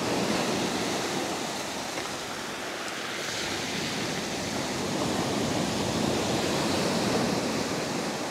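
Small waves washing up over a sand-and-shingle beach and draining back through it, a steady rush of surf that swells and eases.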